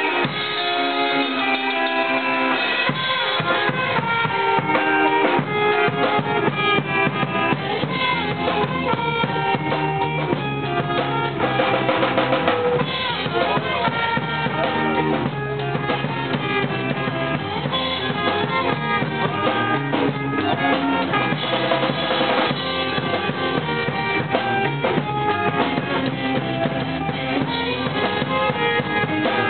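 Live rock band playing a song: a drum kit with electric guitar played through amplifiers.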